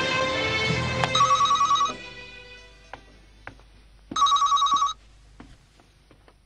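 Electronic desk telephone ringing twice, each ring a fast warbling trill just under a second long, about three seconds apart; the first ring sounds as background music fades out.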